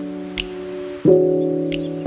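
Background music: sustained chords that change about once a second, with a light tick now and then.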